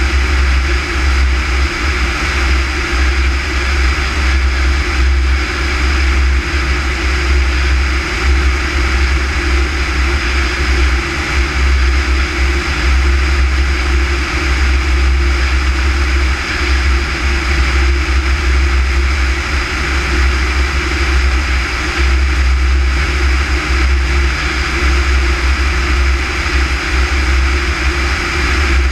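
Light propeller airplane in flight: steady engine and propeller drone mixed with heavy wind rushing and buffeting over the outside-mounted camera's microphone, with no change throughout.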